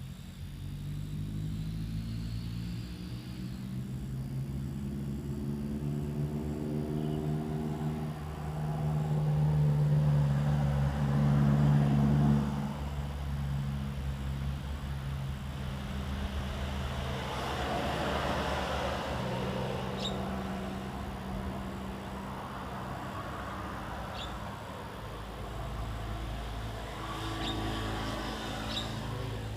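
Motor vehicle engines going by, a low steady hum that rises in pitch and swells loudest about a third of the way through, with a second, noisier pass a little past the middle. A few short high bird chirps come in over the last third.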